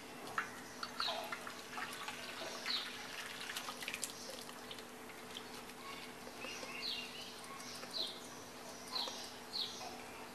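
Faint splashing and dripping as paneer curds and whey are poured from a steel pot into a cloth-lined strainer, with light clicks of the pot. Short high bird chirps repeat about once a second over a low steady hum.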